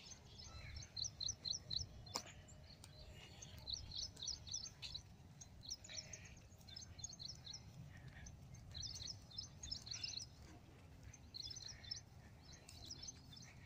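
Small birds chirping in quick runs of short, high notes, a run every second or two, over a steady low rumble.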